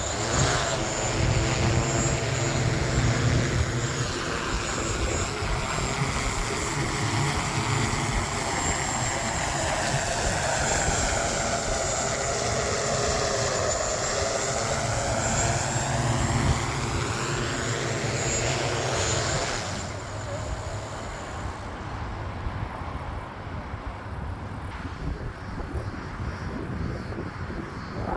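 Propellers of a small VTOL drone whirring in flight, with the pitch sweeping down and back up around the middle. About two-thirds through the sound drops away, leaving a quieter low rumble.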